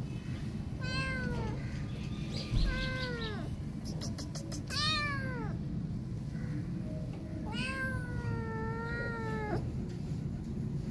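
Young calico cat meowing four times, the last call long, about two seconds. A low thump sounds about two and a half seconds in.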